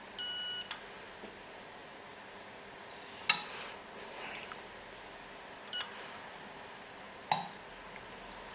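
A short electronic beep, then three sharp clinks of something hard being handled, spaced a couple of seconds apart, the first the loudest.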